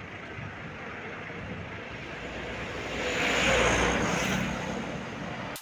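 A vehicle driving past on the road: engine and tyre noise swelling to a peak about three and a half seconds in, then fading away.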